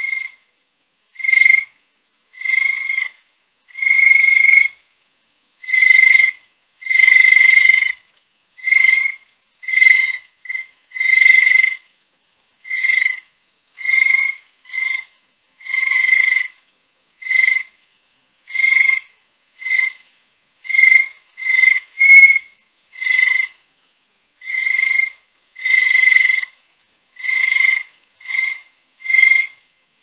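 A woodpecker calling: short, clear chirps on one steady pitch, repeated about once a second with silent gaps between them. Some chirps are brief and others last nearly a second.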